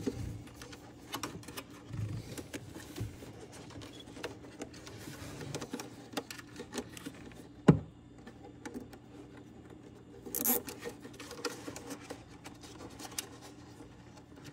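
A zip tie being wrapped around a plastic heater duct hose and ratcheted tight, with scattered clicks and rustling, a sharp knock about halfway through and a short rasp a few seconds later. A faint steady hum runs beneath.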